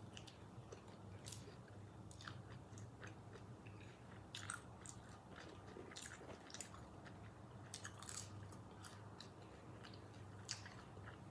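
Faint close-up mouth sounds of someone eating Dave's Hot Chicken fried chicken: irregular crunches and wet clicks of biting and chewing, over a low steady hum.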